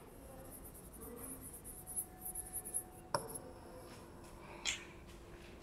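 Faint scratching of writing on a board, with a single sharp tap about three seconds in.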